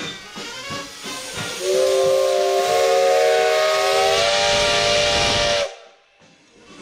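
Steam whistle of a Soviet Er-class steam locomotive blowing one long chord-like blast of several steady notes over a loud rush of steam. It starts about a second and a half in, lasts about four seconds and cuts off sharply.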